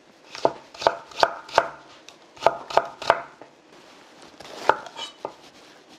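Kitchen knife cutting vegetables into thin strips on a cutting board: about nine separate knife strokes in short runs, with a brief pause a little past the middle.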